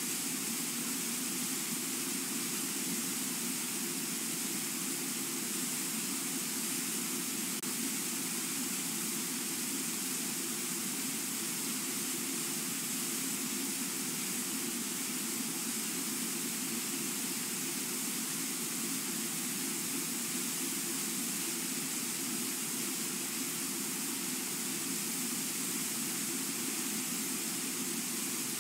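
Steady rushing of river water pouring over a low waterfall and through the rapids below it, an even, unbroken noise with no change.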